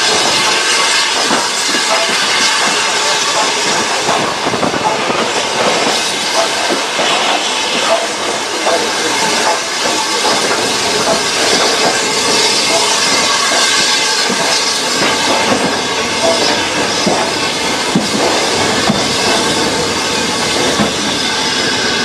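Steam train pulling away slowly, heard from on board: a steady hiss of steam with the clatter of the wheels on the track.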